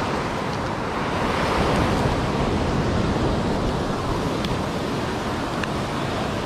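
Ocean surf washing up the beach: a steady rush of breaking waves and foam.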